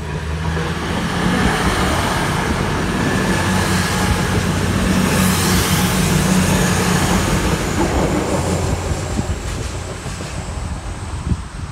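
East Midlands Railway Class 222 Meridian diesel-electric multiple unit passing, its underfloor diesel engines humming low under the rush of wheels on rail. It builds over the first second, is loudest mid-way and eases off near the end as the last coach goes by.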